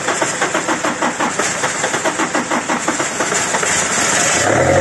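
A 2004 Nissan Xterra's MWM diesel engine being cranked by its starter, with an even chug about five times a second and a hiss over it, while starting fluid is sprayed into the intake. This is a cold start of an engine whose diesel has likely frozen somewhere in the fuel system. Near the end the engine catches and settles into a steady run.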